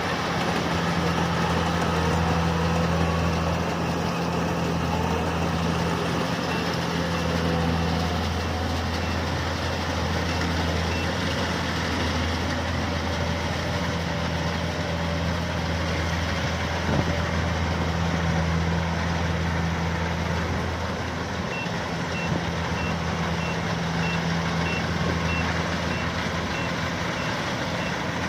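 Rice combine harvester engine running steadily under load. Over the last several seconds a warning beeper sounds short, high beeps, roughly two a second, like a reversing alarm.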